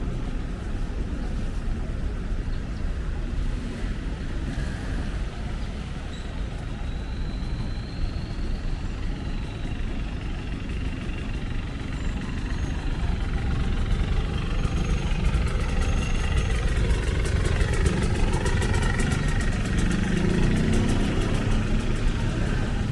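City street traffic: cars and other vehicles running past in a steady rumble, getting a little louder about two-thirds of the way through.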